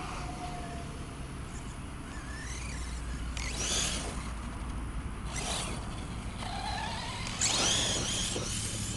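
Arrma Talion 6S RC truck's brushless electric motor whining, rising and falling in pitch as it accelerates and lets off. Bursts of its tyres tearing through high grass and dirt come with it, the loudest near the end.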